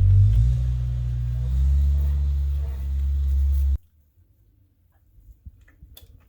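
Background ambient music with low, held bass notes that change slowly, cutting off suddenly about four seconds in. After that it is quiet, with a few faint clicks and knocks.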